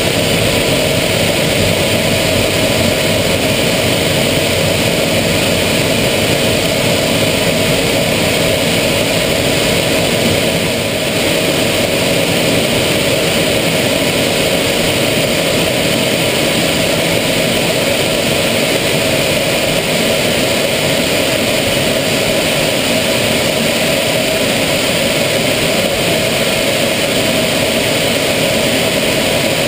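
Steady jet cockpit noise of an Aero L-39 Albatros in flight: its AI-25TL turbofan runs as a constant loud drone with a steady tone.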